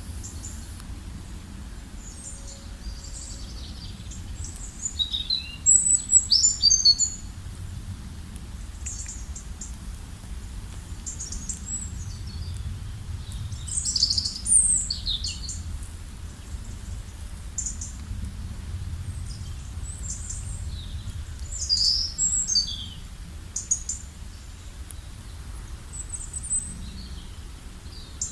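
Several small birds chirping and calling in short, high, scattered notes, loudest in a flurry about six seconds in and again around fourteen seconds, over a steady low rumble.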